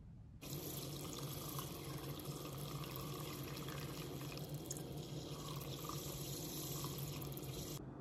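Handheld milk frother running, its whisk churning liquid in a stainless steel cup: a steady small-motor hum under a watery rush. It starts suddenly about half a second in and cuts off just before the end.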